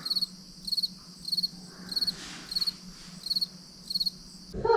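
Cricket chirping: about seven short, evenly spaced chirps, roughly one every 0.6 seconds, starting and cutting off abruptly.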